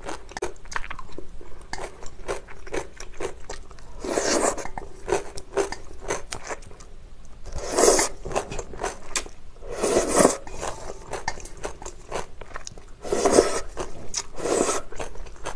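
Close-miked eating of chewy spicy cold noodles: steady wet chewing with many small clicks, broken by about five loud slurps of noodles, the loudest about eight seconds in.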